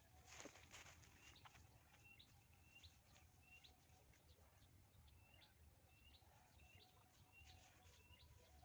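Faint bird calling: a short, rising chirp repeated about every three-quarters of a second, over a low, steady rumble of wind in open rice fields.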